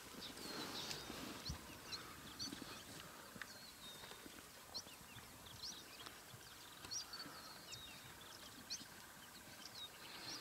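Small birds calling: many short, high chirps scattered throughout, over a faint outdoor background.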